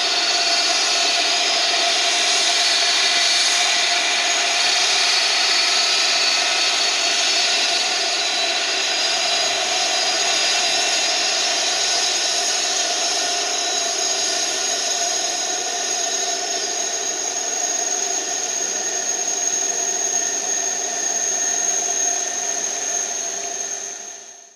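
Pratt & Whitney PW4000-series turbofans of an Airbus A330-300 at low power on the ground: a steady high-pitched whine with a thin piercing tone on top, and the mid-range engine drone not sounding. The whine fades out near the end.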